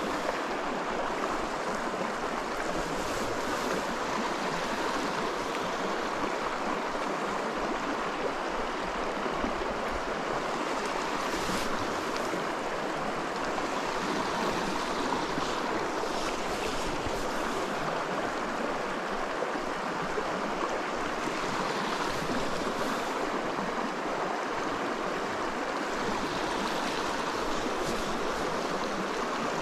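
Small mountain creek rushing steadily over rocks.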